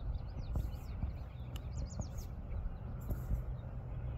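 Small birds chirping in quick runs of short, sweeping calls, over a steady low rumble and a few soft knocks.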